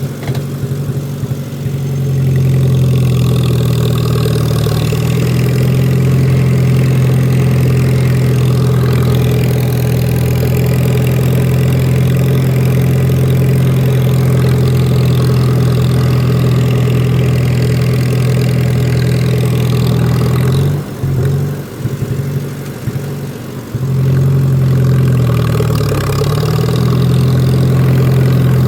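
Lawn mower engine running steadily at a constant speed. About two-thirds of the way through it goes quieter and uneven for a few seconds, then comes back up, with a brief sag in pitch soon after.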